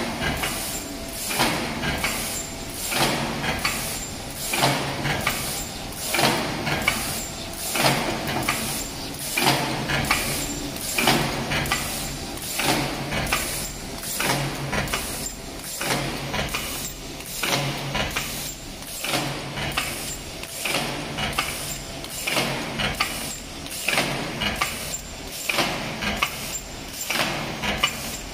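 Fully automatic paper lunch box forming machine running in steady cycles of about 38 a minute. A heavy clack from the forming press comes about every second and a half, with lighter clicks and the hiss of air cylinders between them over a low motor hum.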